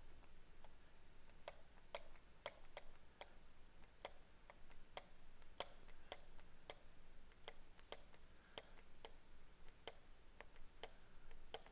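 Faint, uneven taps and clicks of a stylus on a tablet screen while writing by hand, about two or three a second.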